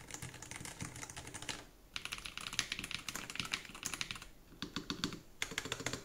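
Fast typing on the Nuphy Air60 HE, a low-profile keyboard with Gateron magnetic Hall-effect switches: a dense clatter of key clicks in three runs, broken by short pauses about two and four and a half seconds in.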